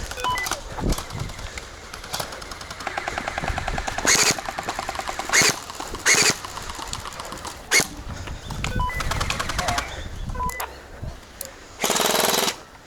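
Electric gel blasters firing in rapid full-auto bursts, a fast rattling stream of shots, with several short loud rushes of noise, the longest near the end.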